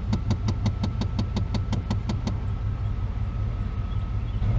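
1994 Chevy Silverado's 5.7 L (350) V8 idling in gear, with a rapid, even ticking about six times a second that stops a little over two seconds in.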